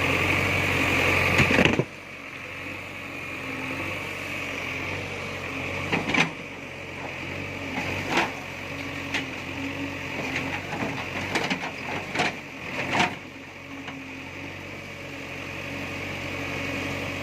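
Backhoe loader's diesel engine running steadily, louder for the first couple of seconds, with several sharp knocks and clatters scattered through, as from the bucket striking rubble.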